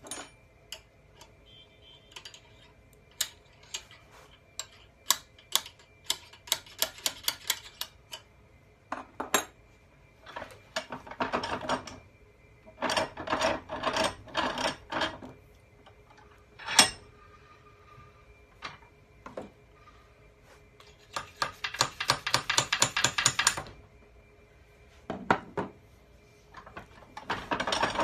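Ratchet wrench clicking in quick runs as its handle is swung back and forth on a part clamped in a vise, with single metal clicks between the runs and one sharp metal knock about two-thirds of the way through.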